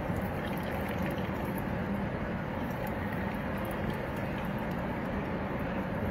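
Mashed beetroot squeezed by hand through a cloth, its juice trickling into a steel bowl, under a steady background noise.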